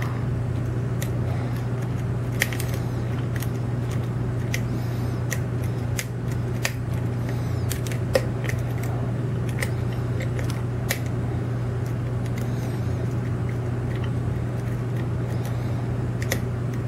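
Metal lock pick clicking and scraping against the pins inside a brass Scandinavian-style oval lock cylinder, in short, irregular, faint clicks while the picker hunts for the binding pin under tension. A steady low hum runs underneath.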